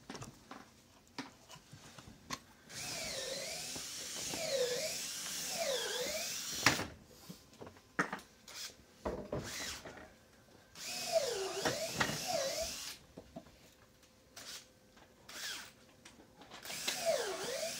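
Electric drill driving screws into timber framing, in three runs about 3, 11 and 17 seconds in: the motor's pitch sags and recovers again and again as it bites under load. Sharp knocks of wood come in between.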